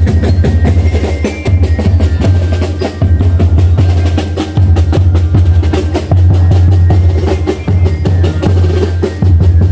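Loud drum-heavy music: a fast snare and bass-drum beat over a deep bass line.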